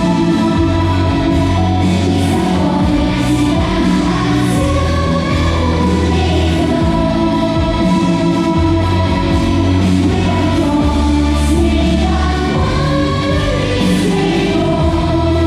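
Music with singing over long held bass notes.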